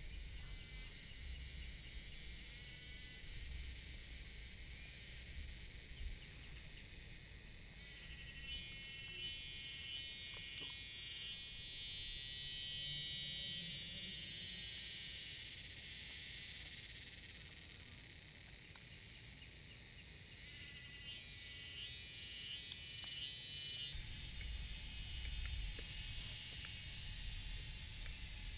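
Insect chorus: a high, steady chirring buzz that swells louder about a third of the way in, fades, and swells again near the end.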